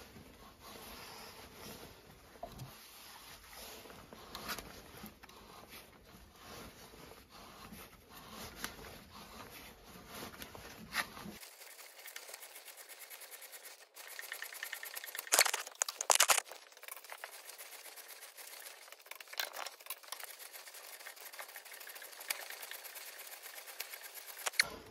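M24 x 1.5 mm threading die being turned by hand in a die stock down a steel bar, the die scraping and creaking as it cuts the fine thread, with scattered small clicks. Two sharp metal knocks a little past halfway.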